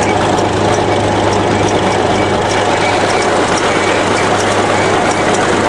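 Crawler bulldozer running and moving, its engine giving a loud steady drone with a light, regular clinking of the tracks over it.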